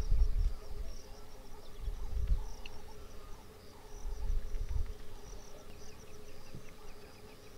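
Grassland insects chirping in rapid repeated trills with a higher hiss of insect song and a steady faint drone. Swells of low rumble come and go every couple of seconds and are the loudest sound.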